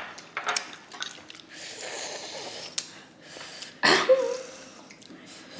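A person breathing hard and hissing in air, with a loud sneeze-like burst of breath about four seconds in, the reaction to mouthfuls of mango heavy with chili powder.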